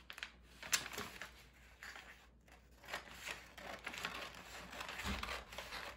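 Scissors cutting through wrapping paper in short snips, with the paper crinkling and rustling, and a low thump about five seconds in.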